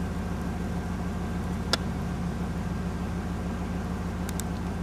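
Car engine running steadily with an even low hum, heard from inside the cabin, with one sharp click a little under two seconds in.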